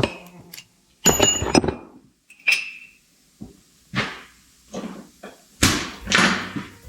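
Metal hand tools knocking and clinking against steel suspension parts, with about ten irregular strikes; one about two and a half seconds in rings briefly.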